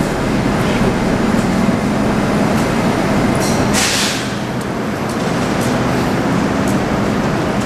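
An 81-765.2 metro train standing at the platform with its doors open, its onboard equipment giving a steady hum. A short, sharp air hiss comes about four seconds in.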